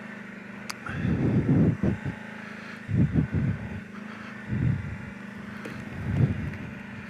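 Kawasaki Brute Force 750 ATV's V-twin engine running at low speed with a steady drone, broken by about four short, louder low surges.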